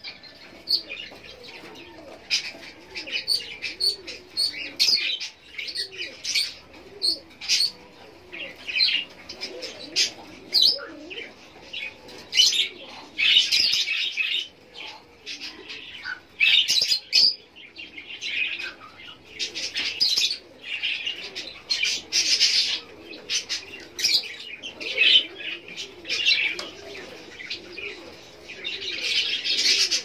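Fischer's lovebirds chirping, in clusters of short, sharp, high-pitched calls.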